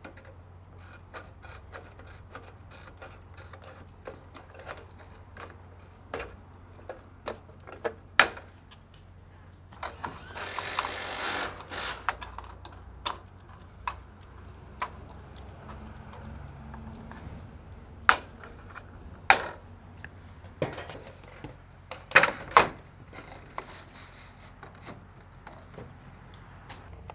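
Sharp clicks and snips from tin snips cutting and working the end of a painted steel roof trim, folding over a tab at the eave. There is a longer scraping stretch about ten seconds in, and scattered louder snaps later on.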